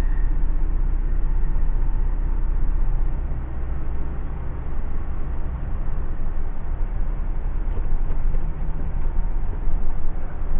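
A DAF lorry's diesel engine running, heard from inside the cab as a steady low rumble while the truck moves slowly across the yard.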